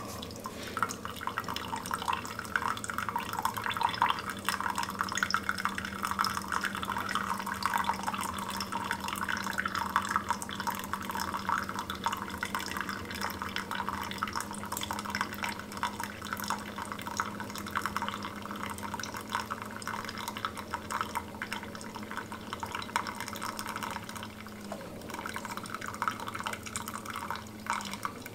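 Keurig K-Slim single-serve coffee maker brewing: a thin stream of hot coffee trickling and splashing into a half-full mug, over a steady low hum from the machine that stops about 25 seconds in.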